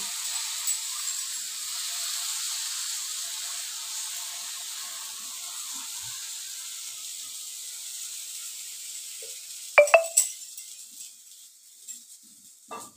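Thin flour batter sizzling on a hot tawa oiled with mustard oil, a steady hiss that slowly dies down. About ten seconds in come a few sharp clinks of steel utensils.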